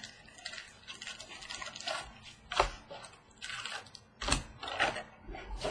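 Cardboard trading-card box being opened and its foil packs pulled out by hand: rustling and crinkling with a few sharp taps as the packs are set down on the table.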